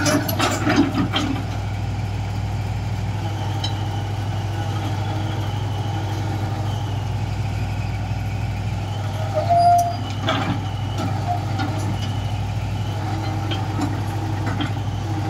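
Daewoo Solar 280LC-III excavator's diesel engine running steadily as the machine tracks onto a lowboy trailer, with a few short knocks in the first second or so and a brief louder tone past the middle.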